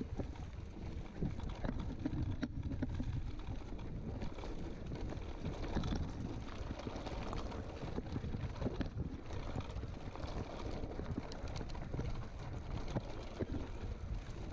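Mountain bike riding down a grassy, stony singletrack: wind rushing over the microphone, with the tyres rolling and the bike rattling in many small clicks and knocks.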